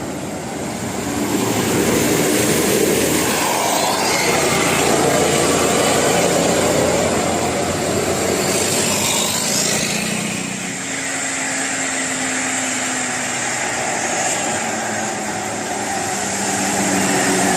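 Large tour bus on the move, its engine and tyres making a steady heavy noise that swells about two seconds in.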